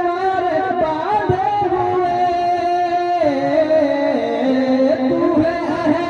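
Naat recitation: a long drawn-out sung melodic line with no clear words. Its held, wavering notes step down in pitch about halfway through and climb back near the end.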